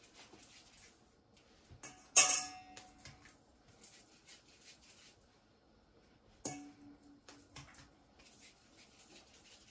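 Dumpling dough being kneaded and pinched by hand in a stainless steel mixing bowl: light taps and scrapes, with two ringing clanks of the metal bowl, the louder about two seconds in and another about six and a half seconds in.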